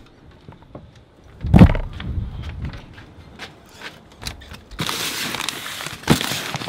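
A heavy thump and a few knocks as the door is worked, then a stretch of crinkling and rustling as a paper shipping mailer is picked up and handled.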